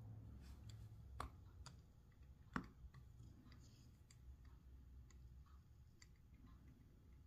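Faint crackle and ticks of flux and molten solder under a soldering iron on a stained-glass seam, over a low hum. Two sharper clicks stand out about a second and two and a half seconds in.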